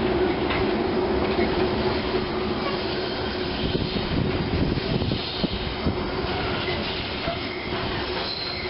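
Container-laden freight wagons rolling past at steady speed: a continuous rumble and rattle of wheels on the rails with a steady hum, and a few brief, faint wheel squeals.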